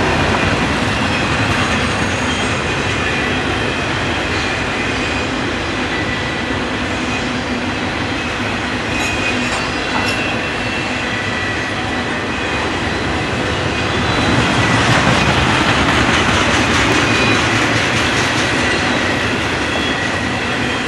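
Intermodal freight train's cars rolling past on the rails: a steady wheel rumble with clickety-clack and thin, steady high wheel squeals, growing louder for a few seconds about two-thirds of the way through.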